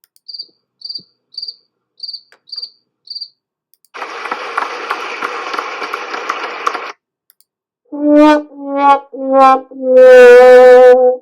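Soundboard sound effects played back: six short cricket chirps for comic silence, then about three seconds of steady noise, then a sad trombone 'wah-wah-wah-wahhh' of four falling notes, the last held long and loudest.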